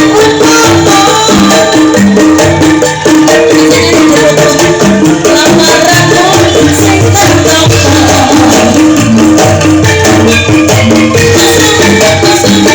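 Loud live campursari music with shaken angklung rattles and a steady beat, amplified through a PA sound system.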